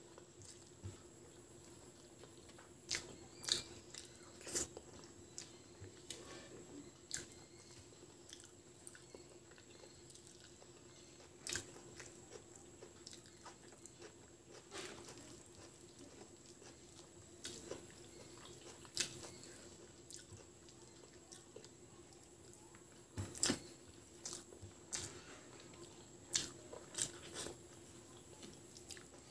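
A person eating rice and lentil dal by hand: close-up chewing with irregular mouth clicks and smacks, and fingers working the rice on the plate.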